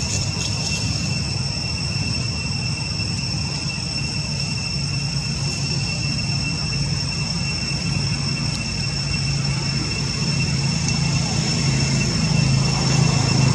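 Steady insect chorus, crickets or cicadas holding two constant high-pitched tones, over a low steady rumble like a distant engine or traffic that grows louder near the end.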